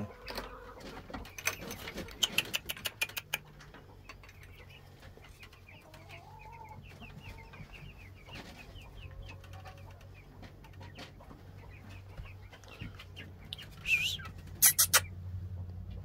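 Young meat chickens peeping and clucking, with clicks and rustling in the first few seconds and a few sharp clatters near the end, over a steady low hum.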